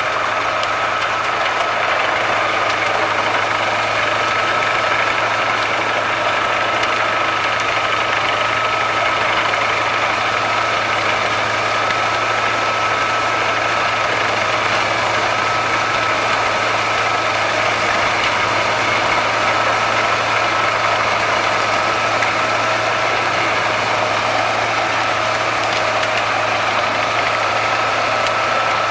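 Wood chipper running steadily: an even engine drone with a constant high whine over a low hum, no changes in speed or load.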